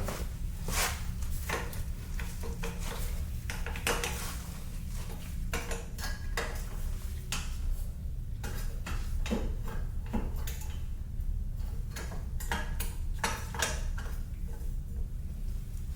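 Metal hand tools and parts clinking and tapping irregularly, many separate small knocks, over a steady low hum.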